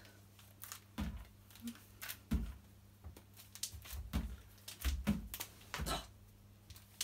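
Elastic bands being stretched and pulled down over a head and hair: irregular rustles and light clicks with several dull thumps.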